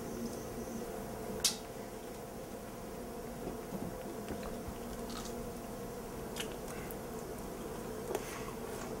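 A person biting and chewing food close to the microphone, with a few sharp mouth clicks, the strongest about a second and a half in, over a steady hum.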